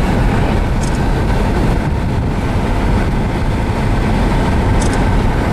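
Steady, loud rushing noise of a vehicle on the move: road and wind noise, heaviest in the low end, with a couple of faint ticks.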